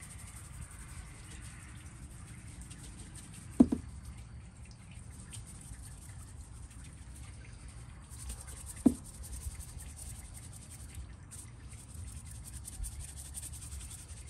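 Raw catfish fillets being tossed by a gloved hand in seasoning inside a plastic ice chest: wet rubbing and fine, quick ticks of seasoning shaken from a can. Two short hollow knocks, the loudest sounds, come about four seconds in and again about nine seconds in.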